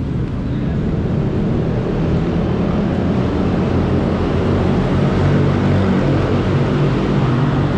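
Steady low rumble of busy city road traffic, swelling slightly past the middle.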